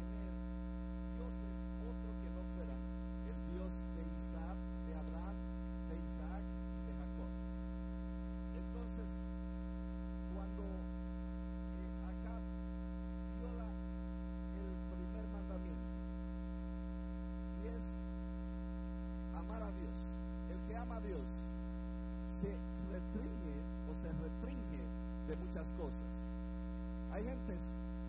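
Steady electrical mains hum from the sound system's feed, a low buzz made of many evenly spaced constant tones that covers the whole stretch and leaves a man's voice only faintly audible beneath it.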